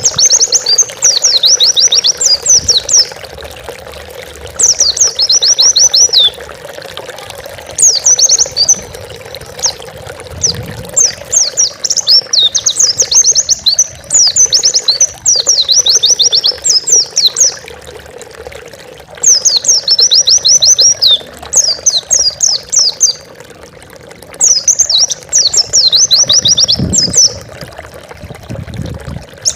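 White-eye (pleci) singing: repeated phrases of rapid, high, trilled notes, each a second or two long, separated by short pauses. A steady low hum runs underneath.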